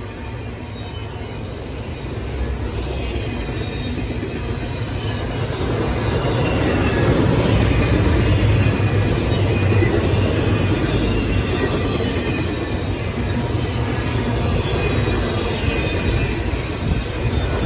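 Freight train's double-stack intermodal well cars rolling past: a steady rumble of steel wheels on rail with faint high wheel squeal, growing louder over the first several seconds.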